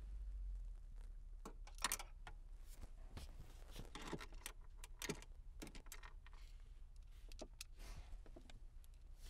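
Faint metal clicks and scrapes of a Phillips screwdriver and small screws as radio mounting screws are put back into the dash bracket, with one sharper click about two seconds in.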